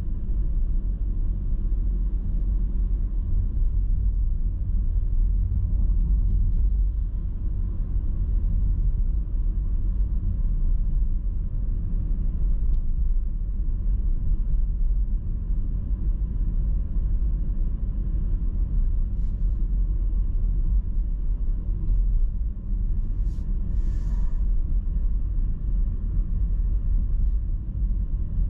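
Steady low rumble of a car driving, road and engine noise picked up by a GoPro mounted in the dashboard, with a couple of brief sharp clicks near the end.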